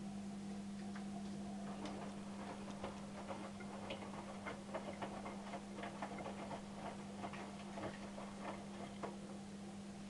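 Hotpoint NSWM 843C inverter-motor washing machine with its drum turning slowly on a rinse tumble. A steady low hum runs throughout, and from about two seconds in the tumbling load makes irregular light clicks and taps, several a second.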